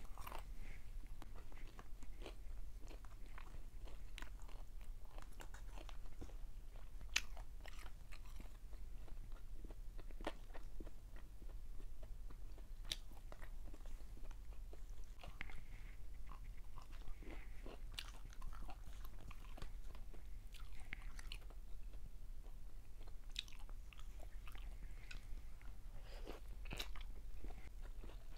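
Close-miked chewing and biting of food eaten by hand: scattered small clicks and crunches of the mouth on food, with a steady low hum underneath.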